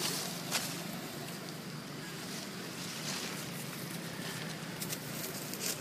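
Rustling and crackling of dry leaves and undergrowth as someone moves through them with the camera, with a few sharper crackles. Underneath is a steady hiss of wind on the microphone.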